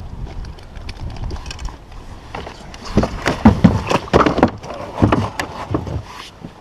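Wind rumbling on the microphone, then from about halfway a quick run of knocks and thumps as a large flathead is handled and lifted on a lip grip aboard a kayak.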